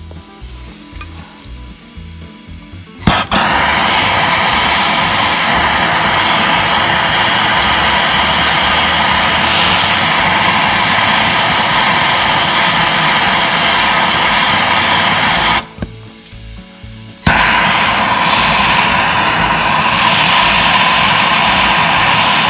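Handheld Bernzomatic MAP-gas torch running with a loud, steady hissing roar, lit with a sharp click about three seconds in, cut for a second or so near the middle and lit again. The flame is heating a seized mower-deck pulley hub to expand it off its shaft.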